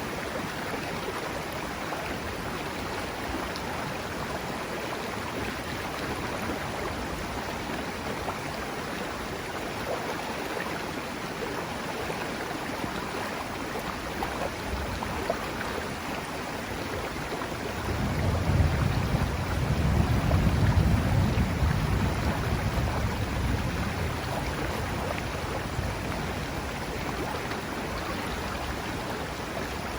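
The Serio river flowing steadily, a continuous rush of water. About 18 seconds in, a low rumble swells and fades away over several seconds.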